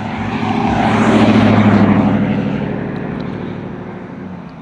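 A motor vehicle's engine passing by, swelling to its loudest about a second and a half in and then fading away.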